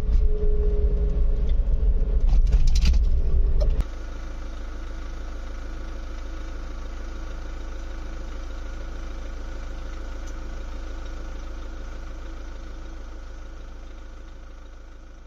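Car engine and road rumble heard inside a moving car. After about four seconds it cuts to a quieter, steady hum that fades out near the end.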